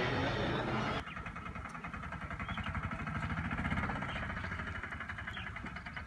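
Music and voices for about the first second, then they cut off and a small engine is heard idling with a rapid, even putter.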